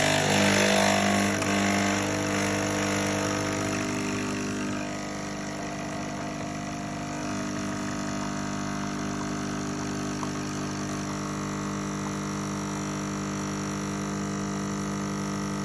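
Capsule espresso machine's pump buzzing steadily as it brews an espresso shot, louder for the first few seconds and then settling to an even hum.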